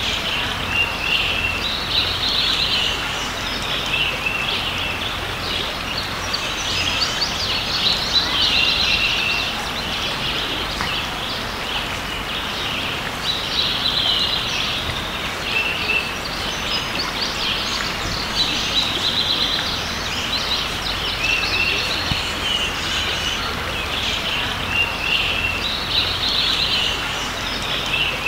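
Creek water running steadily, with a songbird singing short chirpy phrases that recur every few seconds.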